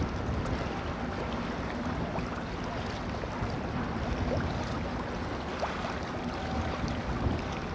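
Japan Coast Guard patrol vessel Kiso (PL53) running at speed across the harbour: a steady low engine drone under the wash of its bow wave and wake, with some wind on the microphone.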